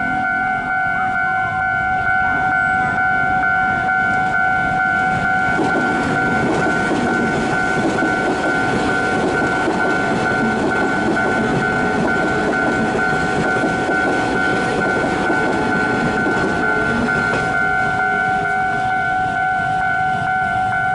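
Level-crossing warning bell ringing steadily as a Taiwan Railway local electric multiple-unit train runs over the crossing. The train's rumble and wheel clatter build about five seconds in and die away after about seventeen seconds, with the bell going on throughout.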